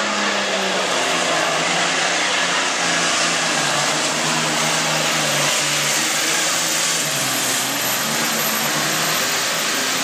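Modified John Deere hot farm class pulling tractor engine running at full throttle under load while dragging a weight sled. Its pitch falls over the first few seconds and then holds steady.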